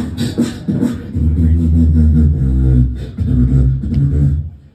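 Solo beatboxing through a venue PA: a few sharp percussive hits, then two long, deep bass notes, and the sound cuts out just before the end.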